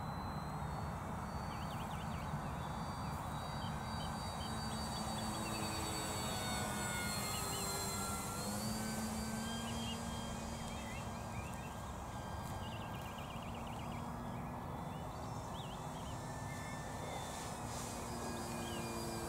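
Durafly Tundra electric RC plane's motor and propeller whining overhead, the pitch gliding slowly up and down with throttle and distance, while birds call with short chirps.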